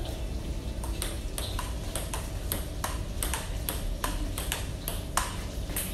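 Table tennis rally: the ball knocking off the paddles and bouncing on the table in a steady back-and-forth, about three to four sharp clicks a second.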